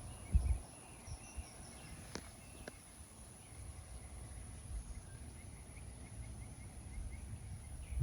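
Quiet outdoor garden ambience with faint, rapid bird chirps. There is a low thump just after the start and two sharp clicks a little after two seconds.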